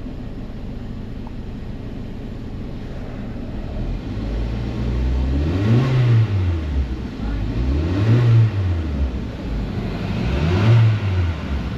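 Car engine idling, then revved three times in short throttle blips, the pitch rising and falling with each one. The revs are used to check actual fuel rail pressure against desired on the scan tool, and the pressure is tracking fine.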